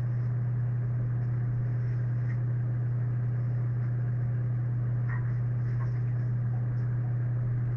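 A steady low hum with no change in level, with a few faint clicks about five to six seconds in.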